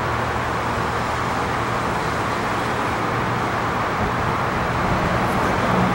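Steady mechanical whir over a low hum as a 1926 Peter Witt streetcar is turned on a turntable. A second, slightly higher hum joins near the end.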